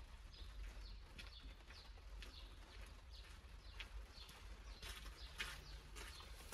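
Faint outdoor ambience: small birds chirping over and over, short falling notes several times a second, over a low steady rumble.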